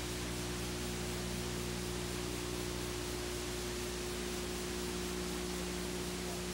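Steady hiss with a low electrical hum made of several steady tones, the background noise of an old analog videotape recording with no other sound on it. The lower part of the hum thins out about four seconds in.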